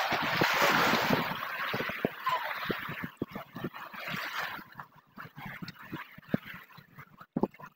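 Sea water washing and rushing, loud for about three seconds and then dying away, followed by scattered low knocks and bumps.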